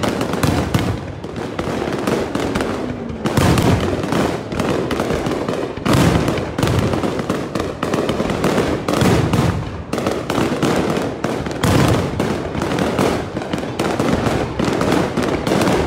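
Fireworks display: a dense, unbroken run of bangs and pops from bursting aerial shells, with louder booms every few seconds.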